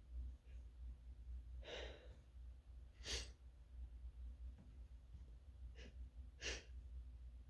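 A person sneezing twice, about three seconds apart, each short sneeze coming just after a quick catching breath. It is part of a sneezing fit that the sneezer puts down to coming down with something.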